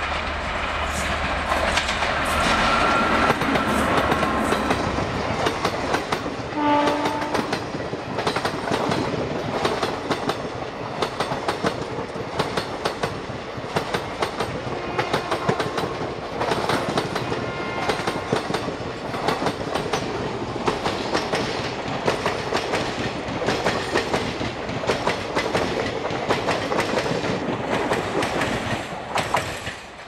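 Express train hauled by a WAP-4 electric locomotive passing close by at speed, its coaches' wheels beating a rhythmic clickety-clack over the rail joints. A short horn blast sounds about seven seconds in. The noise drops off sharply near the end as the last coach goes by.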